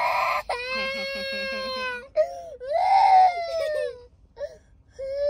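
Toddler boy crying in long, drawn-out cries with short breaks for breath, in a car cabin. He is upset that his father has just stepped out of the car.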